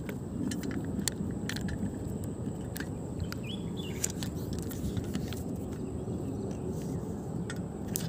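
Steady wind noise on a phone's microphone, with scattered clicks and crunches as the phone is picked up and moved over gravel. A brief high chirp near the middle.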